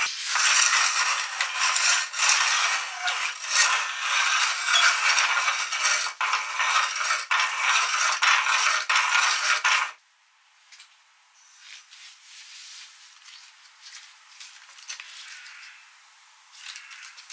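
Metal meat grinder chewing through a silicone pop-it toy: a loud, dense grinding and rattling of the auger and cutter, which stops suddenly about ten seconds in. Faint scattered handling noises follow as the rubbery toy is pulled out of the grinder.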